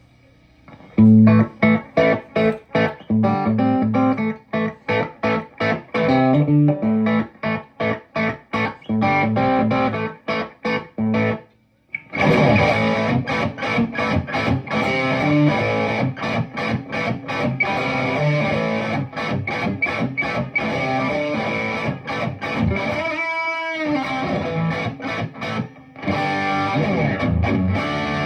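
PRS Silver Sky electric guitar played straight into a Friedman Little Sister tube combo amp, a dry overdriven tone with no delay or reverb. It starts with choppy, stop-start chord riffing, stops briefly about twelve seconds in, then carries on with denser, continuous distorted playing.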